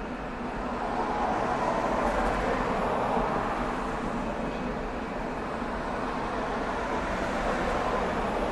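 Steady engine rumble and rushing noise of a river cruise boat under way, swelling slightly about a second in.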